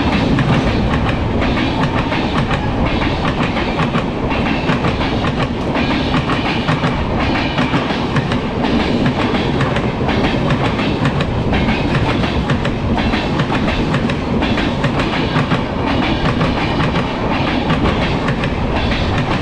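Shatabdi Express passing at speed on the adjacent track, its coach wheels clattering over the rail joints in a loud, steady rumble with a repeating clickety-clack.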